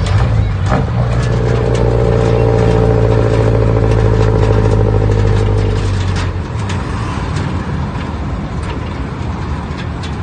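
Isuzu C240 four-cylinder diesel engine running through a four-divider aftermarket muffler, a steady low exhaust note. It sounds louder and fuller for the first several seconds, then eases back about six seconds in.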